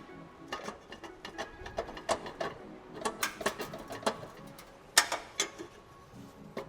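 Irregular metallic clicks and ticks of hand tools and exhaust hardware being worked under the car, with one sharper click about five seconds in.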